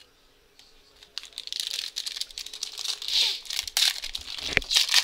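Foil trading-card pack wrapper being crinkled and torn open by hand, starting about a second in, a dense crackling with many sharp clicks.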